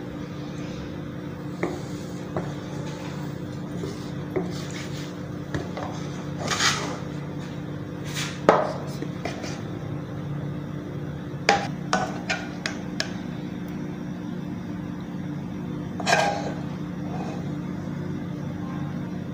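Wooden spatula knocking and scraping against a pan and a china plate while fried eggs and masala are lifted out and served, with a loud knock about eight seconds in and a quick run of clicks around twelve seconds. A steady low hum runs underneath.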